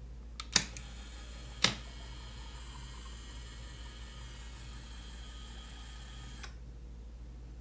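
Two clicks from the gate's solenoid lock and relays, then a small DC gear motor running steadily with a faint high whine, driving the rack-and-pinion model gate open, until it stops suddenly about six and a half seconds in.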